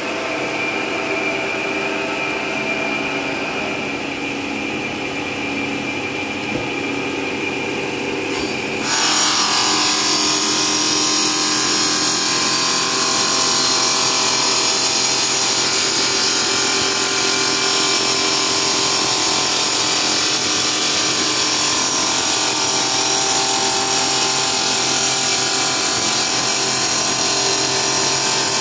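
CNC cutting machine running with a steady motor whine; about nine seconds in it suddenly grows louder with a dense high hiss and holds there.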